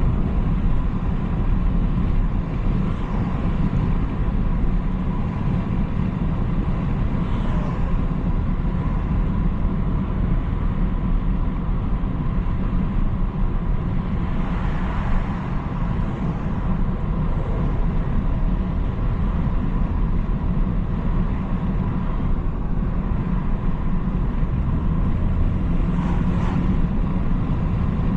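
BMW 330i (G20) being driven: its 2.0-litre turbocharged four-cylinder engine and tyre and road noise make a steady low rumble, with a few faint passing swells.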